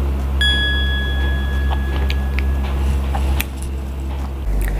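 An edited-in chime sound effect about half a second in: one clear ringing tone that holds for a second or two, over a steady low hum. A few faint clicks follow.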